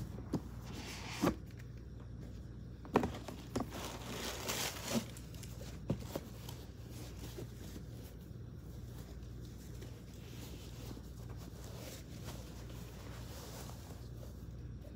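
Unboxing handling: a few soft knocks of a cardboard shoe box and its lid, with bursts of rustling in the first half, then quieter rustling of a cloth dust bag as the loafers are taken out.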